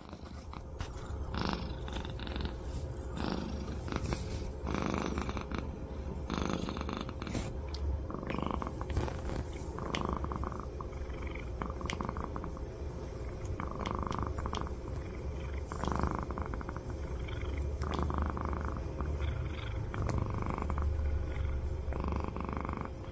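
Domestic cat purring steadily close up, the purr swelling and easing about every two seconds.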